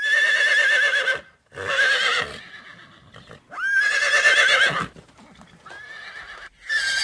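Horse neighing: several whinnies in a row, each a quavering, wavering call about a second long, with short breaks between them.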